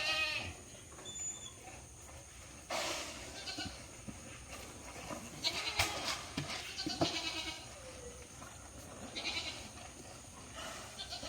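Goats bleating over and over at feeding time, several separate calls, with a few sharp knocks in between.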